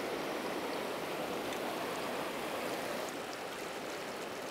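Shallow river rapids flowing over rocks: a steady hiss of running water, a little quieter from about three seconds in.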